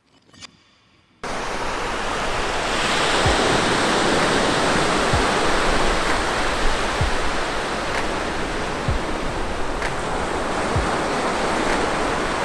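Ocean surf washing up onto a sandy beach: a loud, steady rush that starts abruptly about a second in.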